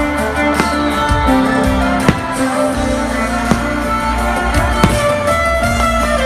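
Loud live concert music through a PA: an amplified electric violin holding long notes over a backing band and beat, with a sharp hit about every second and a half.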